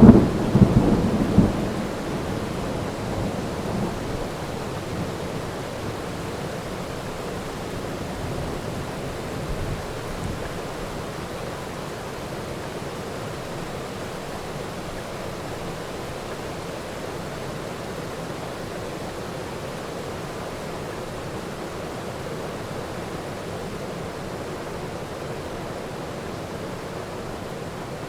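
Heavy thunderstorm: a clap of thunder rumbling at the start and fading away over about four seconds, then steady rain.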